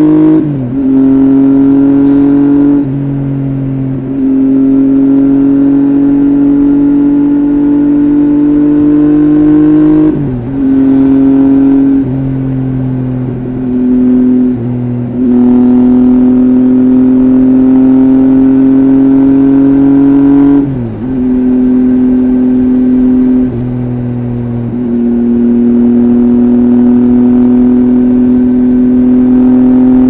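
Triumph Tiger 800 XRx's inline three-cylinder engine running through a LEXTEK RP1 slip-on exhaust with its baffle removed, cruising at highway speed. The exhaust note is steady and slightly loud; its pitch creeps up slowly, drops back sharply several times, and there are a few quieter stretches.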